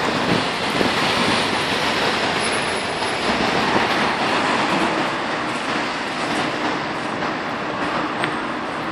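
Steady noise of city traffic on a wet street, with a large coach's diesel engine running close by.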